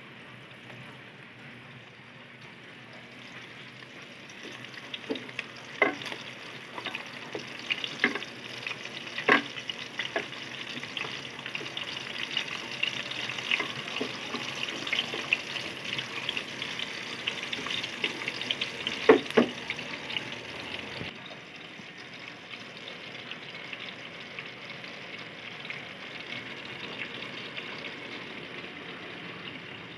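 Dried salted fish (tuyo) sizzling as it fries in hot oil in a pan, a steady hiss with sharp crackling pops every few seconds. The hiss drops to a quieter, duller sizzle about two-thirds of the way through.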